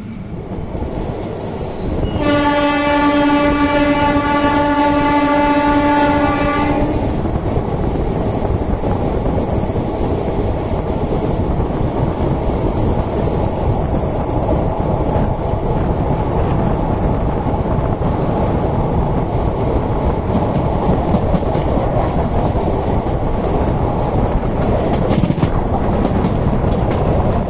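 Indian Railways train running with continuous rumbling rail noise. About two seconds in, a train horn sounds one long, steady blast lasting roughly four and a half seconds.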